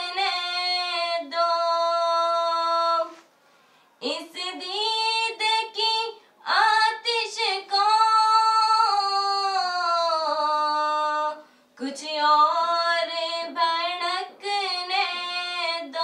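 Women singing an Urdu naat unaccompanied, drawing out long held notes with wavering, ornamented runs. The line breaks off into brief silence twice, about three seconds in and again near twelve seconds.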